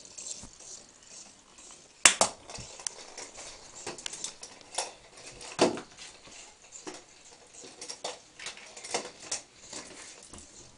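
Irregular clicks, scrabbles and knocks of a Border Collie puppy playing on a tiled floor, its claws clicking on the tile and its battery-operated toy ball bumping about, with a sharp knock about two seconds in and another about halfway through.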